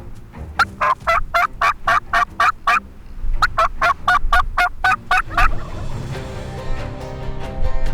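Rio Grande wild turkey calling: two runs of loud, evenly spaced notes, about four a second. Background music comes in near the end.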